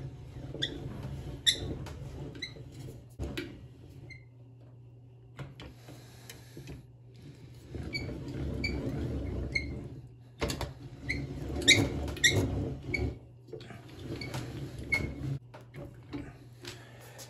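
Hand-cranked slip roll rolling sheet metal into a curve for a muffler body: the rollers rumble in several cranked passes, with short high squeaks repeating as they turn. Between passes the sheet clatters and knocks as it is lifted out and re-fed.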